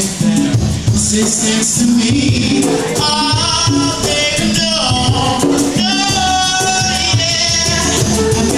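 Acoustic guitar strummed steadily, with a man singing long held notes from about three seconds in.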